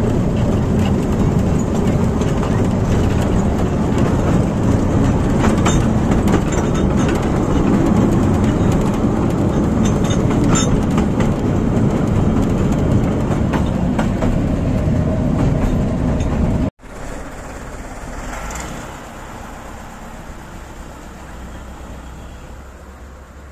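Riding in an open carriage of a 600 mm narrow-gauge forest railway: a steady rumble and rattle of wheels and couplings on the track, with sharp clicks now and then from the rails. About 17 seconds in it cuts off abruptly to a much quieter scene, where a low steady hum, a small narrow-gauge diesel locomotive, comes up near the end.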